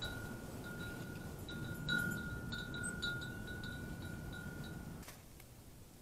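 Wind chime ringing one high note over and over, each strike merging into the next, over a low rumbling noise. The sound drops away sharply about five seconds in.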